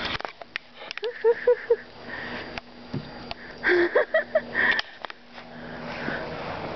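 Labrador whining in short high-pitched notes: a run of four or five about a second in, and another run, rising in pitch, a little past the middle.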